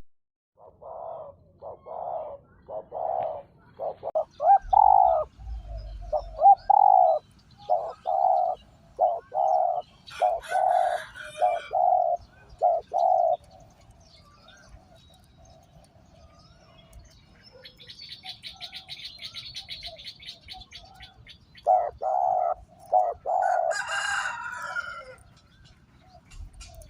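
Spotted dove calling as a decoy bird, giving long runs of short, repeated low coos. It goes quiet in the middle and starts again near the end, and brief higher chirps from another bird come in twice.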